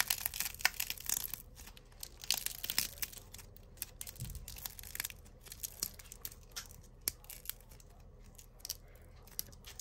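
Crackle slime clay crackling and tearing as fingers squeeze and pull its crust apart. The small crackles come thick and fast for the first few seconds, then thin out.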